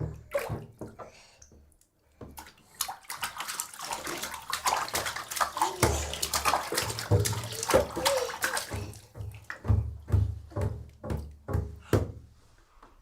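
Baby splashing in bathwater: a quick run of splashes that thins out to separate slaps near the end.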